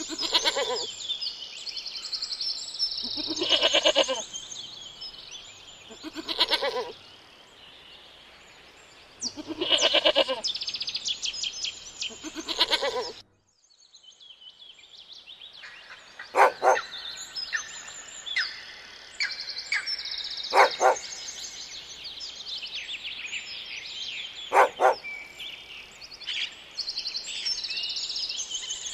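Goats bleating, about five loud bleats over the first half, with small birds chirping behind. The sound cuts out about halfway. After that, birds chirp on, broken by three short, sharp calls.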